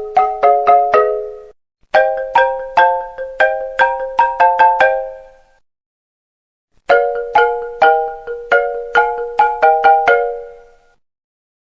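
iPhone ringtone: a marimba-like melody of quick struck notes, playing in repeated phrases with short pauses between them.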